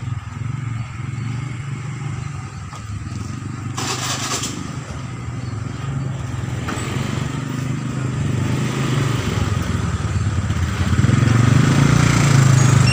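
Motorcycle engine running steadily while riding along a street, growing louder near the end, with a short hiss about four seconds in.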